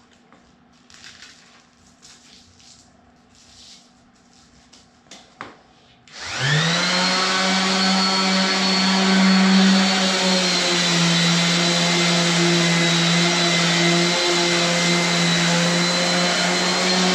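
Faint handling knocks, then a handheld electric sanding tool spins up about six seconds in and runs steadily at full speed with a strong, even hum and whine.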